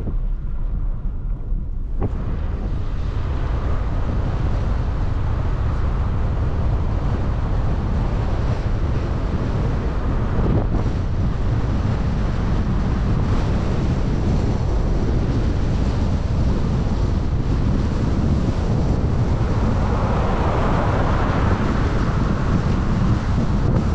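Steady wind rumble on the microphone with road noise from a moving vehicle, swelling louder for a couple of seconds near the end.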